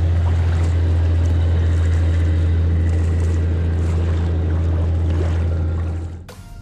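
Low, steady drone of a fishing boat's diesel engine running close by, over water noise. It drops away suddenly near the end, leaving quieter water sounds and a few sharp clicks.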